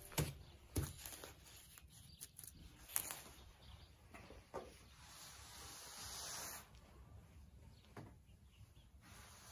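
A few faint, sharp knocks and clicks, about five spread over the stretch, with a soft rustling hiss for a second or two past the middle.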